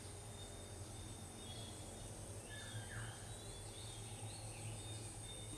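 Quiet background ambience: a steady low hum and a high hiss, with a few faint short high chirps scattered through the middle.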